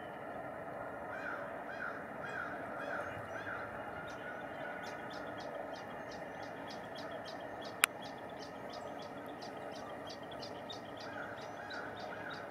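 Brown-headed nuthatches calling: a run of short, squeaky high notes about three a second, with short series of lower rising-and-falling notes at the start and near the end. A single sharp click about eight seconds in.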